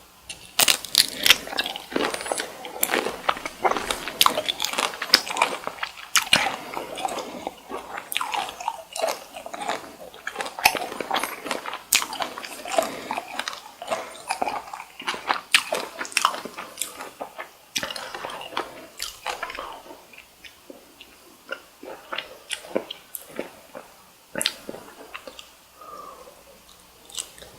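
Chewing and biting of cooked cocktail shrimp, close to the microphone, with many quick sharp mouth clicks. The clicks thin out over the last third.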